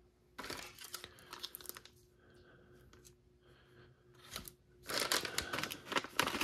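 Plastic ration-pack packets crinkling and rustling as they are handled, in scattered crackles early on that turn louder and denser over the last second and a half.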